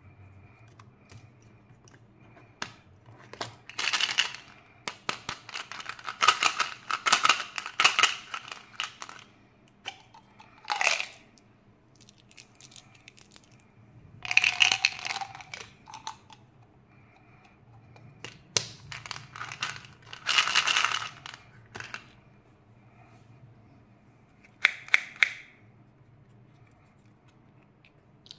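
Hands handling plastic candy packaging in irregular bursts of crinkling and clicking, with small hard-coated candies rattling as they are tipped from a plastic tube into a palm about a third of the way in. A faint steady hum runs underneath.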